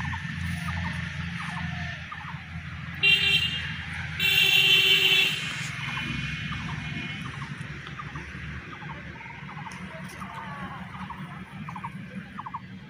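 A vehicle horn sounds twice: a short toot about three seconds in, then a longer honk about a second later, over steady low background noise.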